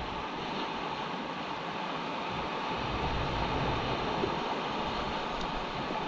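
Sea surf washing in over a rocky shore: a steady rush of waves, with wind gusting on the microphone.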